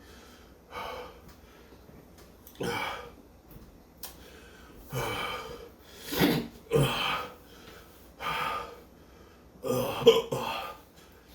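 A man's hiccups and coughs, about eight short bursts one to two seconds apart, the loudest near the end. They are set off by the burn of superhot chili peppers.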